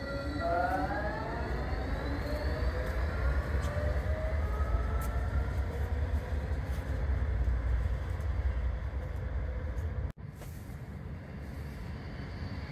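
Articulated low-floor electric tram pulling away, its traction motor drive whining in several tones that rise over the first couple of seconds, over a steady low rumble of wheels on rail. The sound cuts off abruptly about ten seconds in and gives way to a second tram running past, a little quieter.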